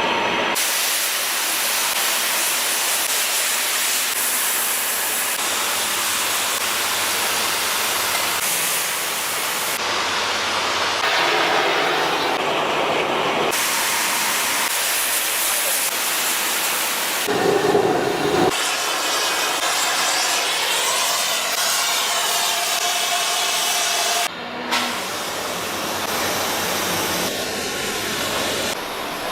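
Loud, steady hissing noise from factory work, its character changing abruptly several times as one clip cuts to the next.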